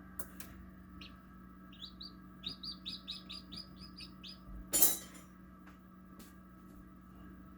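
Chicks peeping: a quick run of about nine short, high peeps, followed about a second later by one brief loud noise. A steady hum runs underneath.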